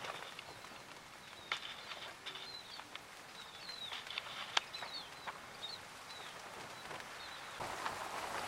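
A small bird giving short, high chirps, several in quick succession, over faint outdoor ambience, with a few sharp clicks between them.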